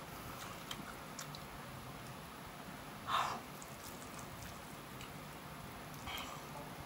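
A person slurping and chewing spicy instant noodles. There is one loud, short slurp about three seconds in and a softer one a little after six seconds, with faint mouth clicks between.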